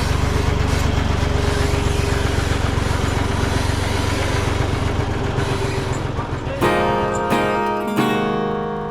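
A heavy machine's engine running steadily with a low rumble. About six and a half seconds in it cuts off abruptly to plucked acoustic guitar music.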